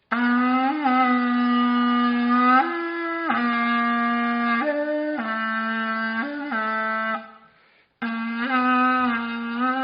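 Archaeological wind instrument blown in long held notes with a rich, buzzy tone; the note steps up to a higher pitch and back down several times. The tone dies away about seven seconds in, and a fresh blow starts a second later.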